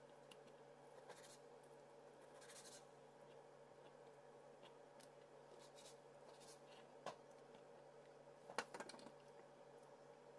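Chef's knife cutting raw chicken thigh on a plastic cutting board, very quiet: soft slicing strokes and light taps of the blade on the board, with two sharper taps in the second half.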